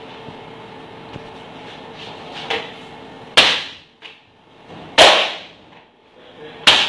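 Metal baking tray of piped macaron shells rapped hard against the worktable three times, about a second and a half apart, after a lighter knock; each bang rings briefly. It is the usual step for knocking air bubbles out of the shells before they rest and bake. A steady hum of kitchen equipment runs underneath.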